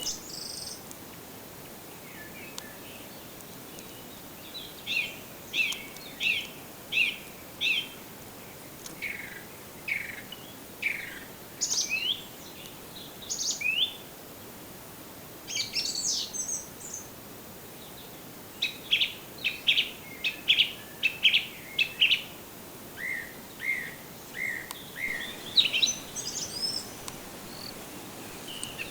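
Wild songbirds singing: short high chirps and quick whistled phrases, some repeated about twice a second and some in rapid runs, with short pauses between the bouts.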